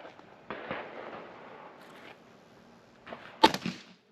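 A Rizzini BR460 EL over-and-under shotgun fired once at a pattern board. There are two sharp reports: one about half a second in that trails off over a second or so, and a sharper, louder crack with a brief rattle near the end.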